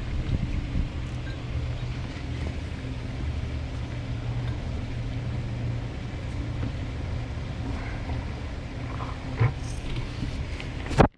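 A steady low mechanical hum, with a few light clicks near the end and one sharp knock just before it ends.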